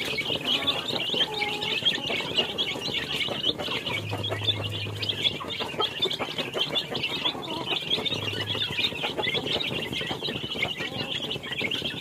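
A pen full of young chicks peeping constantly while they feed, in many short, high, overlapping chirps.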